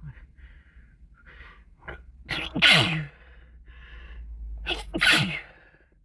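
A person sneezing twice, about two and a half and five seconds in, each sneeze preceded by catching breaths in.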